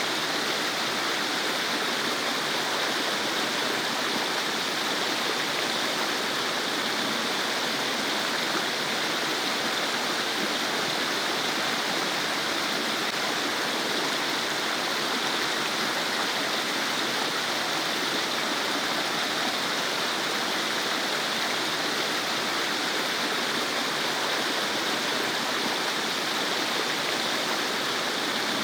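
Stream babbling: a steady, even rush of running water that does not change.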